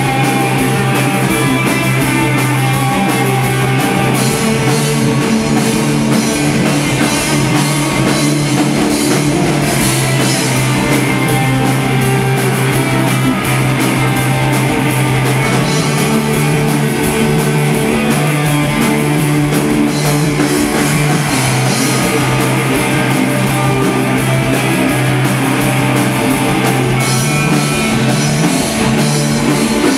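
Live stoner rock band playing loudly and steadily: distorted electric guitars and bass guitar on a heavy, held low riff over a drum kit.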